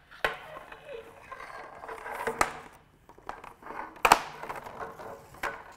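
Sachtler flowtech tripod leg sections sliding in and out with a scraping rustle and several clicks, with a sharp knock about four seconds in. The leg is being deployed to check that its freshly serviced lower brake now lets it slide properly.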